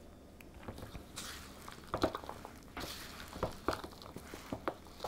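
A utensil stirring a stiff, dry pinto bean fritter mixture of mashed beans, cornmeal, peppers and onions in a mixing bowl: soft wet squishing and scraping with a few light clicks against the bowl.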